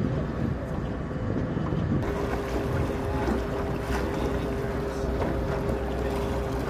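Boat engine running steadily, with wind buffeting the microphone and water washing. A steady hum joins about two seconds in.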